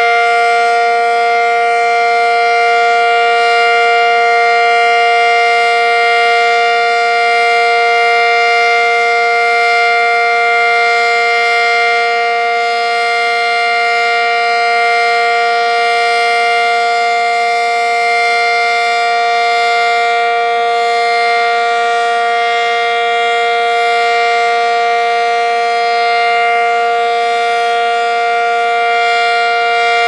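ACA SuperBanshee civil-defense siren sounding a loud, steady blast: a held chord of several tones with no rise or fall in pitch.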